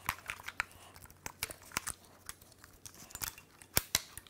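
Scattered plastic clicks and snaps as the ignition coil connectors and wiring harness are unclipped and the pencil coils pulled off the valve cover, with two sharper snaps near the end.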